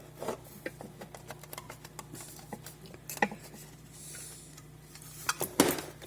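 Small clicks, taps and knocks of hands opening and handling the plastic case of a mini battery spot welder, with a louder clatter of knocks near the end.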